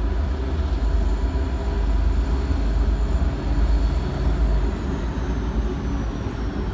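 Train running: a steady low rumble, with a faint high whine that falls in pitch about five seconds in.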